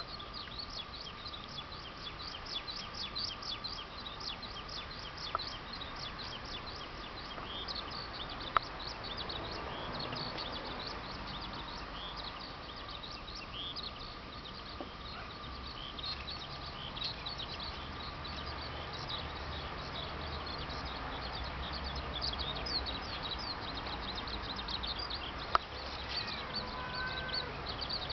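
Small birds chirping continuously in rapid, high, short notes, over a steady faint whine. Three sharp clicks stand out: about five seconds in, about eight and a half seconds in, and near the end.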